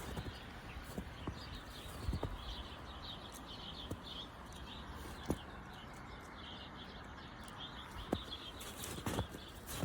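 Small birds chirping faintly and over and over, with a few scattered soft clicks.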